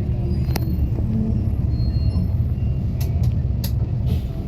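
Airliner cabin noise: a steady low rumble of the jet engines and the moving aircraft, with a few short light clicks or rattles in the second half.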